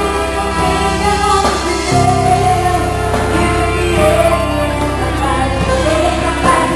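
A band rehearsing a Christian worship song, with instruments and singing.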